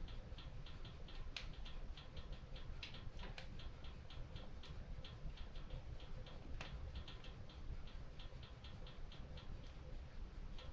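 Wood fire crackling in a stone fireplace: a quick run of small crackles, about four a second, with a few sharper pops over a low rumble.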